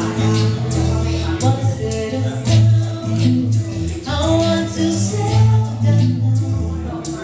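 Live band playing a song: sung vocals over held bass notes with steady percussion hits.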